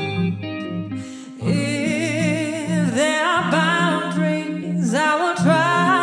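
A woman singing into a microphone over a clean electric guitar picking a repeating pattern of low notes. The voice comes in about a second and a half in, and its long held notes waver in pitch.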